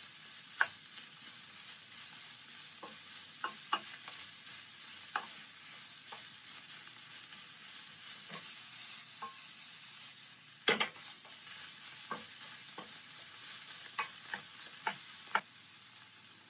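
Pork, shrimp, shiitake and bamboo shoot sizzling in a frying pan while a wooden spatula stirs them, with scattered taps and scrapes of the spatula against the pan; the loudest knock comes about two thirds of the way through. The stirring stops near the end and the sizzle goes on more quietly.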